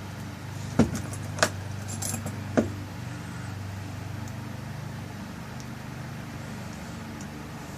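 Metal lock-cylinder parts clicking as the tail piece is screwed back onto a rekeyed pin-tumbler cylinder: three sharp clicks in the first three seconds with a few fainter ticks between them. A steady low hum runs underneath.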